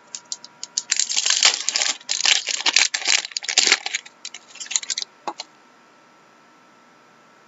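Plastic trading-card pack wrapper crinkling as it is torn open and the cards are pulled out, a dense crackle for about three seconds, followed by a few light clicks as the cards are handled.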